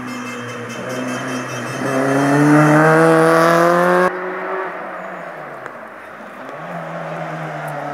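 Rally car engine accelerating hard past, its pitch climbing, which cuts off suddenly about four seconds in. After that another rally car's engine is heard more faintly, rising in pitch as it approaches.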